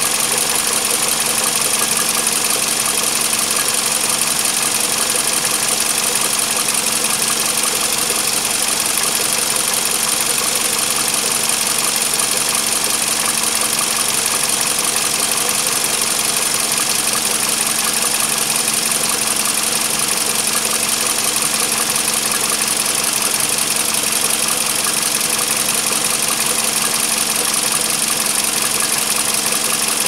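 Toyota 2AZ-FE 2.4-litre engine running steadily, with a constant hum and a hiss.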